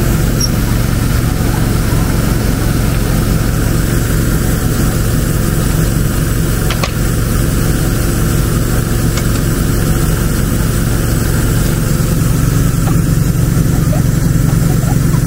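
An engine running steadily at an even speed, with a single click about seven seconds in.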